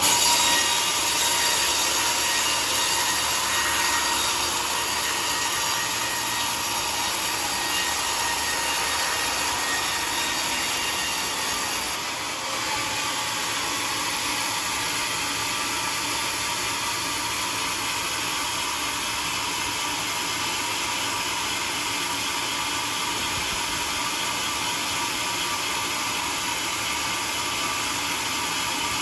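Homemade sawmill cutting through a wooden log with a steady sawing noise, loudest in the first few seconds, with a brief dip about twelve seconds in.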